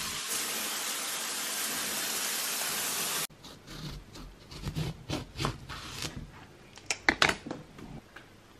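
Rain shower head running, a steady hiss of spray that stops abruptly about three seconds in. Then a knife cutting a lemon on a cutting board, a run of knocks and sharp taps.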